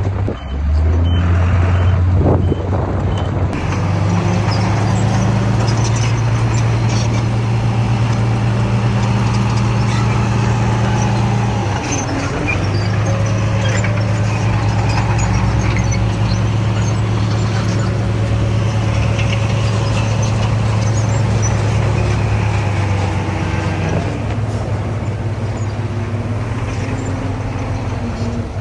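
Heavy earthmoving machine's diesel engine running steadily under load. Its pitch dips briefly about twelve seconds in and changes again a little before the end.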